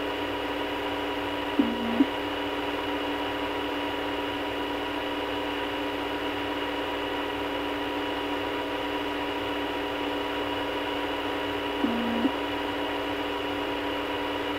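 Telephone line held open with no one speaking: a steady electrical hum of several constant tones over line hiss. A brief click and dip in the hum comes twice, about 2 seconds in and again about 10 seconds later.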